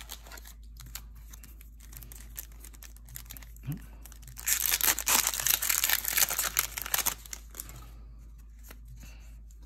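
Foil wrapper of a Magic: The Gathering booster pack being torn open by hand: a crinkly tearing that starts about four and a half seconds in and lasts about three seconds, with light clicks of cards being handled before and after.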